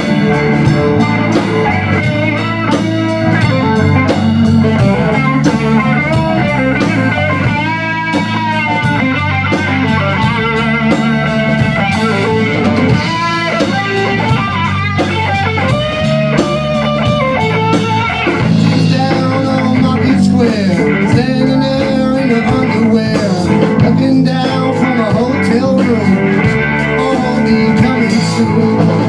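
Live rock band playing in a small room: drum kit, bass guitar and an electric guitar taking a blues-style lead with bent notes. A man's voice comes in singing near the end.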